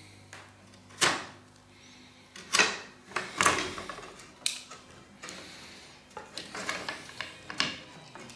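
Irregular sharp wooden knocks and clicks as a batch of wooden organ keys, just glued with leather on their backs, is handled and parted on a wooden board.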